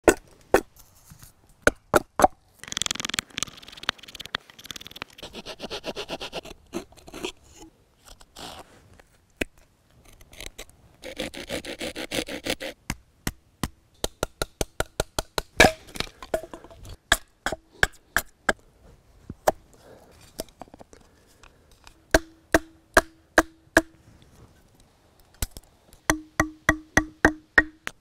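Hand carving wood with a hatchet and a multi-tool knife blade: repeated sharp knocks of the hatchet striking wood, broken by two stretches of the blade scraping and shaving the wood. Near the end the knocks come in quick, even runs with a short ring.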